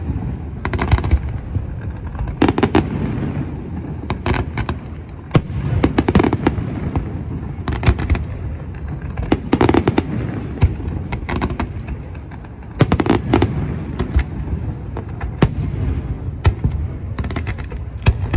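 Aerial fireworks going off in quick succession: many sharp bangs and crackling bursts, several a second at times, over a continuous low rumble of echoing booms.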